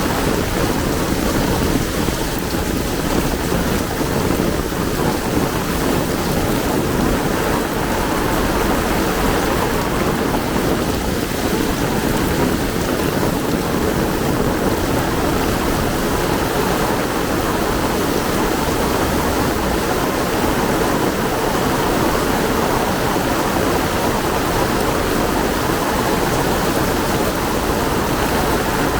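Heavy rain pouring steadily, an even rushing noise that holds at the same level throughout.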